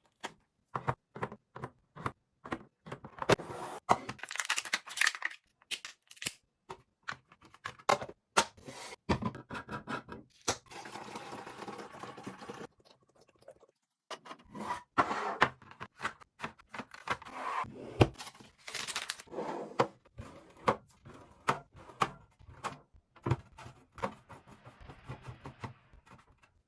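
Food packaging and containers being handled: plastic crinkling and tearing, with many knocks and clicks as items are set down.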